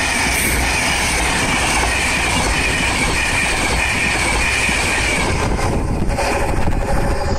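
Train passing close by on the main line: a loud, dense rush of wheels on rails with a high whine that slowly falls in pitch. The noise thins out about five and a half seconds in as the train clears.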